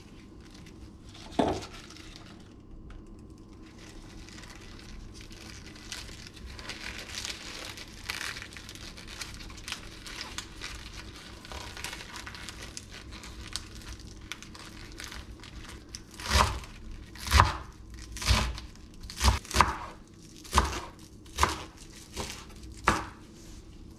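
Fresh spinach leaves rustling and crinkling as gloved hands bunch them into a tight bundle, after a single knock near the start. In the last several seconds a chef's knife chops through the bundle onto a wooden cutting board, with about nine sharp, irregular strikes.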